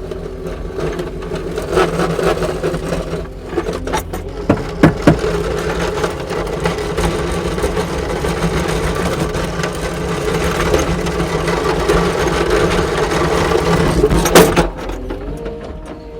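Kubota SSV65 skid steer's diesel engine running hard while plowing, with a few sharp clanks. Near the end its level climbs, then it drops suddenly to a quieter, lower idle.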